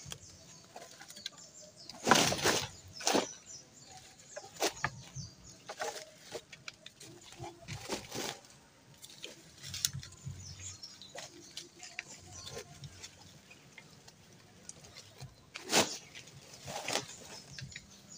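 Cut wooden branches being handled and packed into a woven plastic sack: irregular rustling of the sack with clicks and knocks of sticks against each other, loudest about two seconds in and again near the end.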